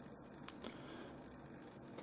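Faint room hiss with two small clicks about half a second in, the first sharper than the second.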